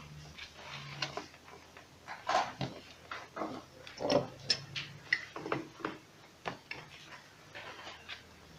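Irregular clicks and knocks of a wrench and metal and plastic parts being handled while a pipe fitting is tightened on a submersible water pump, with a few sharper knocks in the middle.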